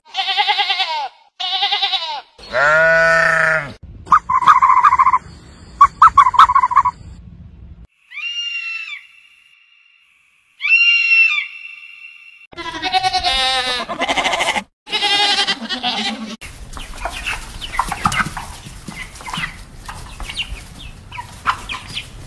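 A string of different animal calls cut one after another. First come three pitched, arching cries, the third longer and lower. Then two buzzy calls, then a few high chirps with near silence between them, and finally a dense, noisy stretch of overlapping calls.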